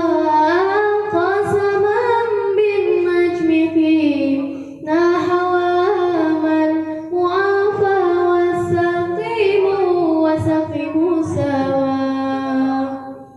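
A young singer's solo voice singing an Arabic sholawat (devotional song praising the Prophet Muhammad), drawing out long, ornamented notes that slide between pitches, with two short breaths along the way.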